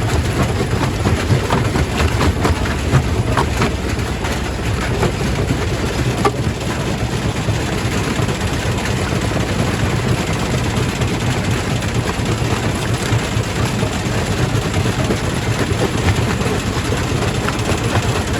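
Quarry primary rock crusher running: a loud, steady heavy-machinery rumble with a rattling, grinding texture, and a few sharp cracks in the first several seconds.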